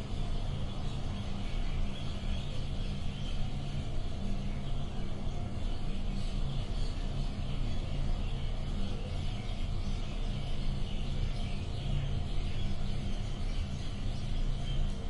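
Room ambience: a steady low hum under an even background hiss, with no distinct events.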